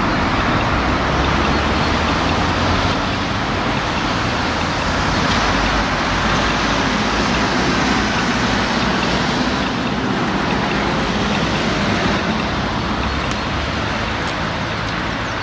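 Steady traffic noise: a constant rushing hum with a low rumble beneath, easing slightly toward the end.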